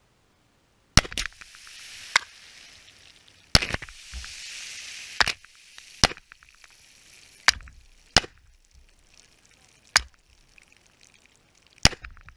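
Gunshots hitting aluminium soda cans lined up on a board beside the microphone: about ten sharp cracks, irregularly spaced, as the cans are knocked off one by one. Twice a punctured can sprays soda, a fizzing hiss that lasts a second or two.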